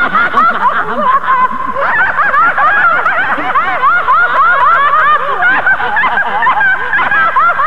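Several high-pitched voices laughing together in a continuous run of quick rising-and-falling laughs, following a joke's punchline.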